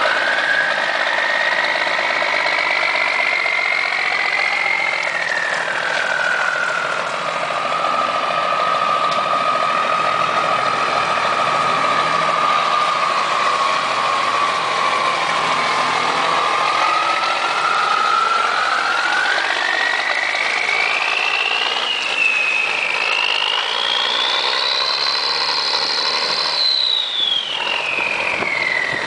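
M35A2 army truck's turbocharged multifuel engine running as the truck drives off. A high-pitched whine follows the revs: it rises over the first few seconds, drops back and holds steady, then climbs high in the second half and falls sharply near the end.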